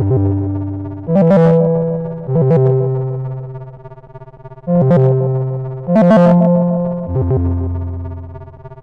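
A Xiaomi Redmi 9A alarm tone playing: synthesizer electric-piano chords, three struck about a second apart, each left ringing and fading. The same three-chord phrase starts again a little under five seconds in, as the tone loops.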